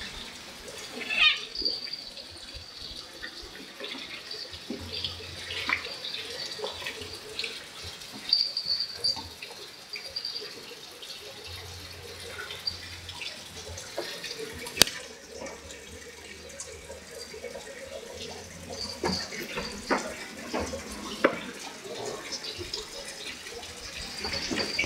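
A wild otter and a cat wrestling on wooden decking: bumps, scuffles and knocks on the boards, with intermittent high-pitched squeaking that starts and stops. One sharp knock stands out about halfway through.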